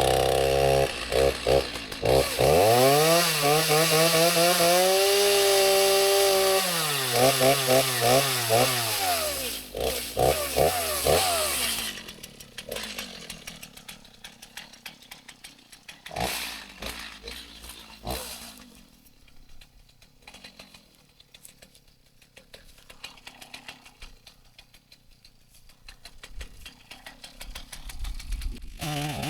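Chainsaw idling, then revved up to full throttle and held for a few seconds, then dropped back and blipped several times. It goes quiet about twelve seconds in, and a few sharp knocks follow.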